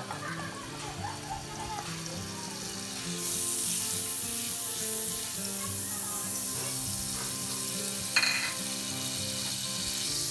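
Margarine sizzling as it melts in a hot wok over low heat while a wooden spatula moves it around. The sizzle comes on suddenly about three seconds in and holds steady, with one brief sharp sound of the spatula against the pan about eight seconds in.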